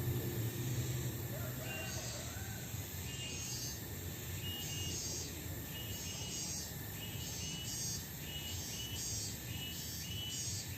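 Outdoor ambience with short high-pitched chirps, several of them repeating about once or twice a second over a steady low rumble of background noise.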